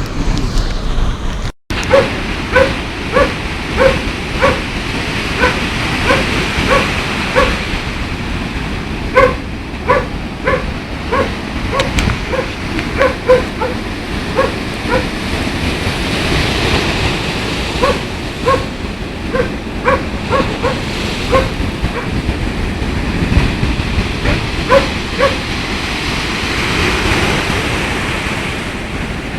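A dog barking repeatedly, short barks about once or twice a second that stop near the end, over the steady noise of storm surf and wind.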